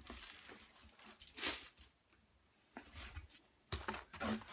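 Hands rummaging in a cardboard box and handling cables packed in zip-top plastic bags: rustling in four short, irregular bursts.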